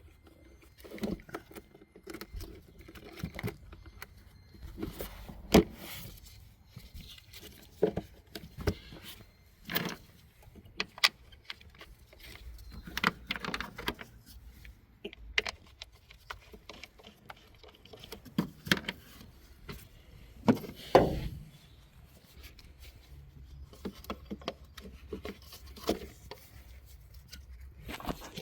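Scattered clicks, knocks and light rattles of parts, clips and tools being handled in a car's engine bay during reassembly, with a few louder knocks, the loudest about 21 seconds in.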